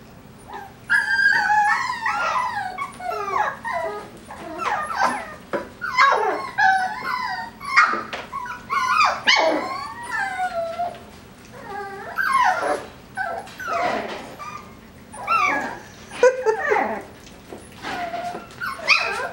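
Coton de Tulear puppies whining, yipping and howling in a string of high, wavering cries that start about a second in and come with short pauses. The crying is typical of puppies unhappy at being separated from a littermate.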